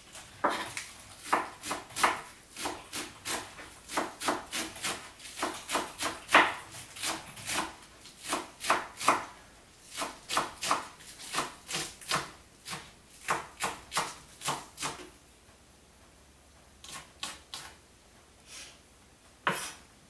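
Kitchen knife chopping leafy greens on a wooden cutting board, in a steady run of quick knocks about three a second. After a short pause near the end come a few more scattered chops.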